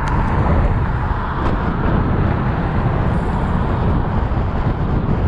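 Steady wind rumble on the microphone of a camera riding along on a moving bicycle, mixed with road traffic noise.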